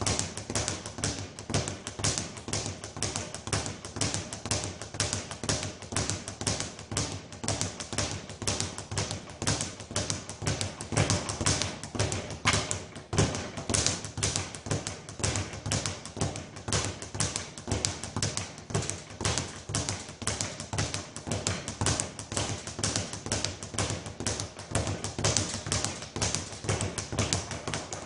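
Speed bag being punched continuously, the bag slapping back and forth off its rebound platform in a rapid, even rhythm of impacts.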